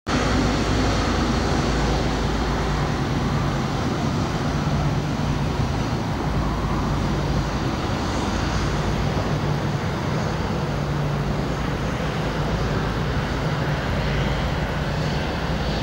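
Singapore Airlines Boeing 777-300's twin turbofan engines at takeoff power during the takeoff roll: a loud, steady engine noise with a constant low hum under it.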